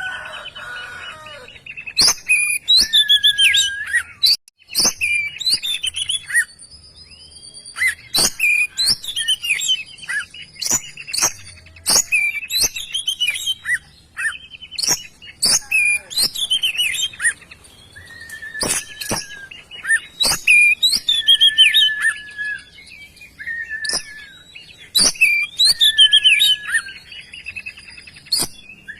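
Oriental magpie-robin (kacer) in full, vigorous song: loud, varied phrases of sweet whistles, quick chirps and sharp clicks, delivered in bursts of a few seconds with short pauses between them.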